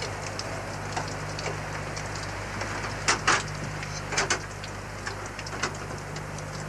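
Wooden knocks and clatters as a wooden shutter and boards are handled: single knocks about a second in and near the end, and close pairs about three and four seconds in. Under them run a steady low hum and hiss.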